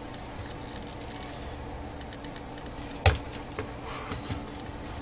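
Plastic Lego Technic parts clicking and knocking as the model is handled and turned over, with one sharp knock about three seconds in and a few lighter clicks after it, over a steady low hum.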